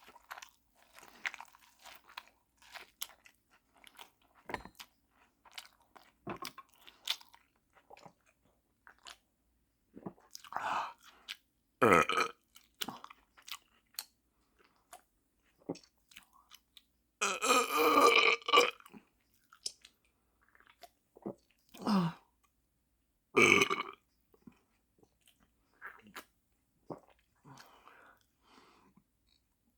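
Close-miked chewing and biting of food: many short, wet mouth noises and crunches. A few louder sounds from the mouth and throat stand out, the longest about eighteen seconds in.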